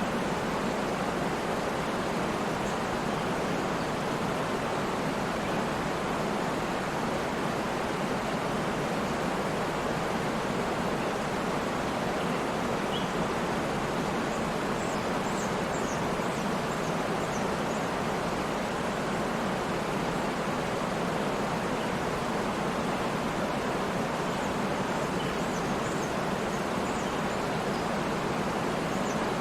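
Waterfall rushing steadily, with faint high bird chirps a few times, about halfway through and again near the end.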